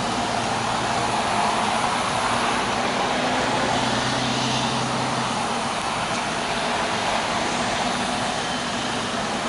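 City buses driving past one after another: steady engine and road noise, with a low engine hum that grows stronger about four seconds in as one bus passes close by.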